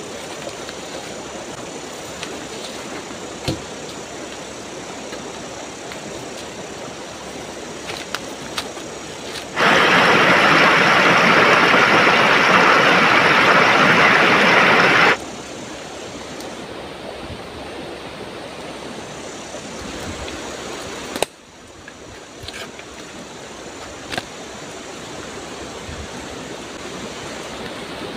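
Steady rush of a river, with a much louder close-up rush of water spilling over a small rock ledge for about five seconds near the middle, cutting off suddenly. A few sharp knocks sound here and there.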